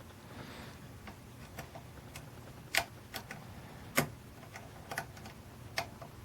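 Faint, irregular metallic clicks and ticks of a hook pick working the pins of a Yale pin-tumbler cabinet lock under tension during single-pin picking, the loudest tick about four seconds in.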